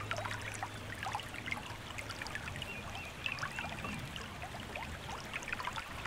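Stream water trickling and babbling, with many small splashes. The low tone of a piece of background music fades out about a second in.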